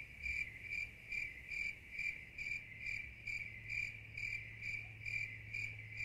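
Crickets chirping in an even rhythm, about two chirps a second, over a continuous high-pitched trill.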